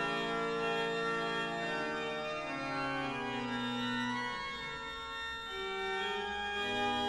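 Pipe organ playing slow, held chords that shift every second or two, with a deep bass note entering near the end.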